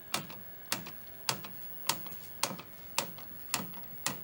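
Sony Trinitron television's channel selector clicking from channel to channel, a sharp, evenly spaced click nearly twice a second.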